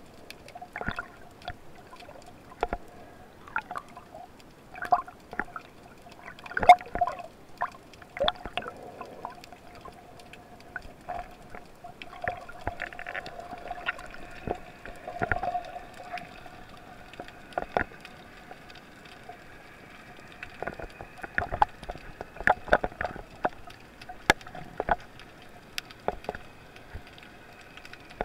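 Underwater sound heard through a camera's waterproof housing: a steady hum with irregular sharp clicks and knocks, and a faint higher whine in the middle stretch.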